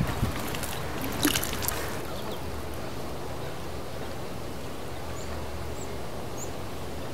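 Steady outdoor background noise with a low rumble. A short cluster of sharp clicks comes about a second in, and a few faint, short high chirps sound in the second half.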